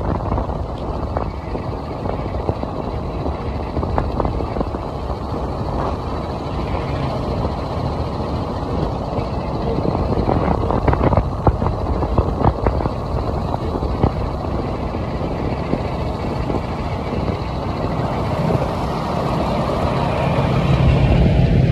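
Motorcycle riding at speed, with wind rushing over the GoPro's microphone and the engine of a TVS Apache RR310, a single-cylinder bike, running underneath. A few short knocks come around the middle. The engine note grows stronger and louder near the end.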